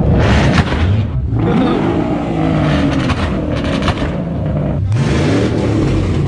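Dodge Charger's engine being revved, its pitch rising and falling several times.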